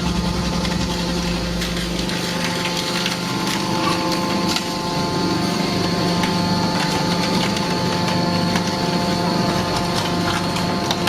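Hydraulic scrap car baler running: a steady hum of its pump motor, with scattered metallic cracks and creaks as it compresses a car body.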